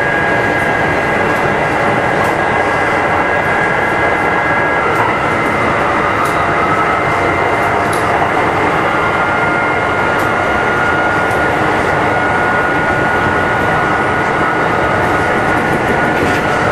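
Kintetsu 2410 series electric train heard from aboard its motor car MoHa 2413 while running between stations. A steady rumble of wheels on rail, with a few faint whining tones held over it and occasional light ticks.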